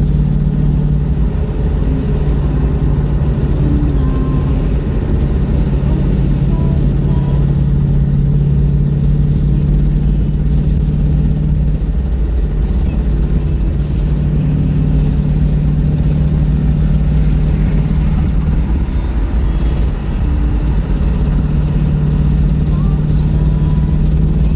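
Car driving on the road: a steady low rumble of engine and tyres with a constant hum, which drops away briefly about halfway through and again a little later.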